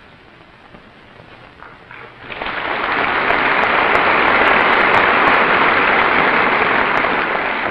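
A large audience applauding. The clapping starts about two seconds in, swells quickly into a steady, even roar of many hands, and begins to fade near the end.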